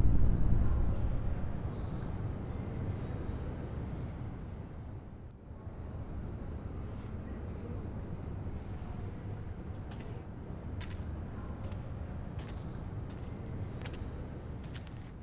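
Cricket chirping in a steady run of quick, even pulses. A low rumble fades away over the first couple of seconds. Several light, sharp clicks come in the last few seconds.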